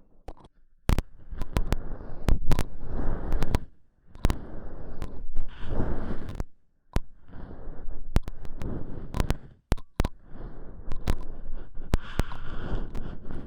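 Close-miked ASMR rubbing on the microphone, crackling and scratchy with sharp clicks, in four strokes of about two to three seconds each with short pauses between.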